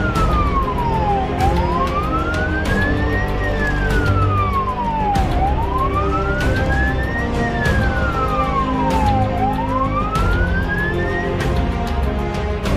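Fire engine siren wailing, its pitch sliding slowly down and up, about two seconds each way, before it stops near the end, over background music with a steady beat.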